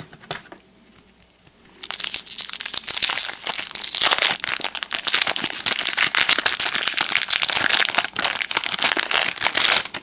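Foil wrapper of a 1991 Topps Stadium Club baseball card pack being torn open and crinkled by hand. The crackling starts about two seconds in and goes on until near the end.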